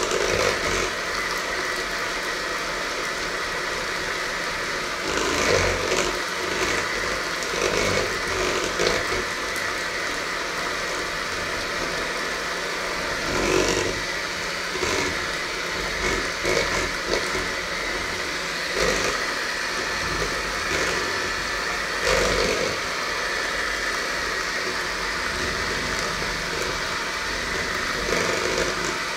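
Electric hand mixer running steadily, its beaters whisking batter in a stainless steel bowl, with a steady high hum and irregular louder moments every few seconds.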